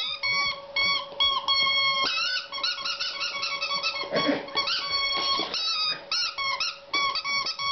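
A border collie chewing a red rubber squeaky toy, setting off rapid strings of high squeaks, some short and some drawn out. About halfway through there is a brief rougher, lower sound.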